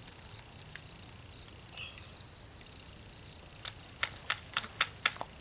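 Insects trilling steadily in a high, pulsing chorus, with a few sharp clicks about four to five seconds in.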